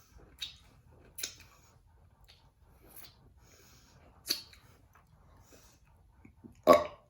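A person eating sour candy, with a few short mouth clicks, then one short, louder burp near the end.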